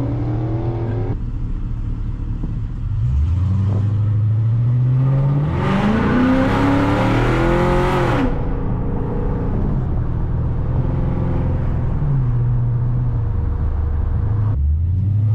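Chrysler 300C's 5.7 L HEMI V8 under acceleration while driving. The engine note climbs, falls back and climbs again, and grows loudest and roughest about six to eight seconds in.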